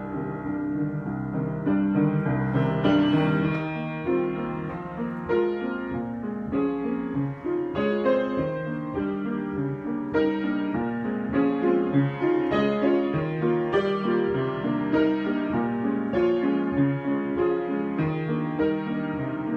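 Solo piano improvisation: chords with a melody above them, new notes struck every second or so.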